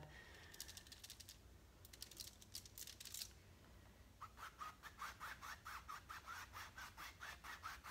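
Dry paintbrush tipped with white acrylic brushed lightly back and forth across a canvas: faint, scratchy bristle strokes. A few strokes come about two seconds in, then a quick, even run of about four strokes a second from about halfway.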